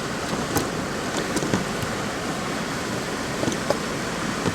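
Hands rubbing a thick yogurt-and-spice marinade into chicken pieces, giving a few soft wet squelches over a steady rushing background noise.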